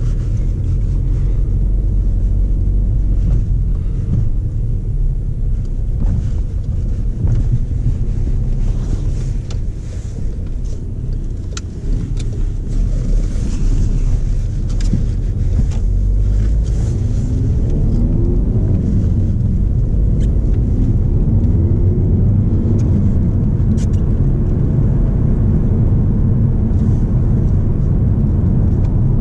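Volkswagen Passat 2.0 TDI four-cylinder turbodiesel heard from inside the cabin, driving and accelerating on the road with a steady low engine and tyre rumble. The engine note rises in pitch about two-thirds of the way through as the car pulls up through the revs.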